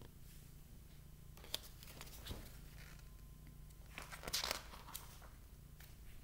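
Pages of a picture book being handled and turned: a light tap, then soft paper rustles, the loudest about four seconds in, over a faint low hum.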